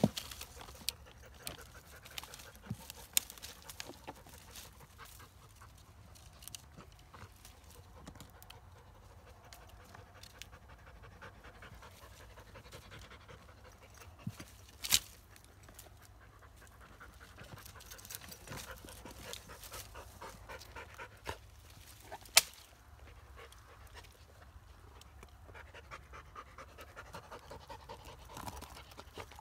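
Kars shepherd dog panting hard while it pushes its head into a hollow at the base of a tree. There are a few sharp clicks among light rustling, the loudest about halfway and two-thirds of the way through.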